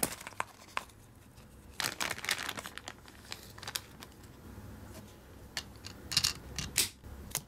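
A plastic gashapon capsule clicking open, then a clear plastic bag crinkling as a toy is unwrapped, followed by several sharp clicks of hard plastic being handled.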